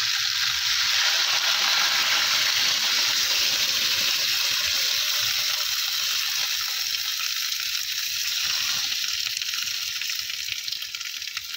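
Wine sizzling and hissing as it hits a hot frying pan of potatoes, peppers and onions over a wood fire, the liquid boiling off as steam; the hiss eases off over the last few seconds.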